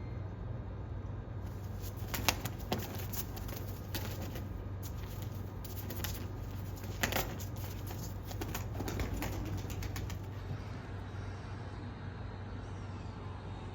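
Bird's wings flapping in a few short, sharp bursts, the loudest about two seconds and seven seconds in, over a steady low hum.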